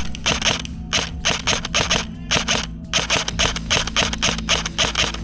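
Airsoft electric rifle (AEG) firing a quick string of single shots, about three a second and slightly uneven, each a sharp mechanical snap.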